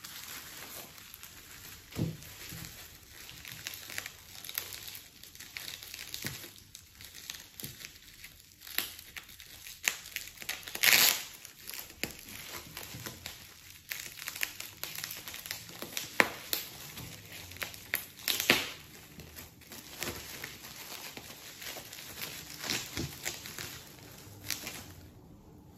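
Plastic bubble wrap crinkling and rustling as a wine bottle is unwrapped from it by hand, with many sharp crackles and a few louder snaps, the loudest about eleven seconds in.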